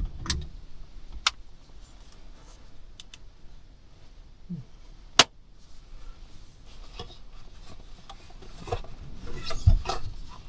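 Objects being handled and shifted around: rubbing and scraping, with a couple of sharp clicks, one about a second in and another about five seconds in, and more scraping near the end.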